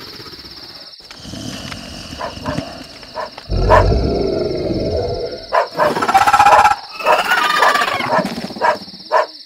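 A dog barking repeatedly over a steady high-pitched whine, with a low rumble coming in about three and a half seconds in.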